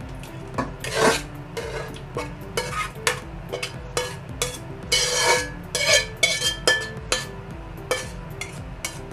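A spoon scraping and clinking against a kadai and a serving bowl as thick mushroom curry is spooned out, in many short knocks and scrapes, over light background music.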